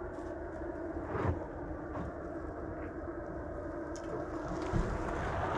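A Rivian R1T electric pickup truck crawling over a rutted dirt trail toward the listener. Its tyres work over dirt and stones with a few short knocks, over a steady hum, and the sound grows louder as it comes close near the end.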